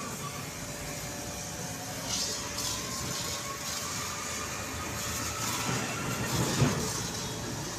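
Clif Max domestic car washer running steadily, its pressure-washer jet hissing as it sprays water onto a scooter's wheel and bodywork. A short thump about six and a half seconds in.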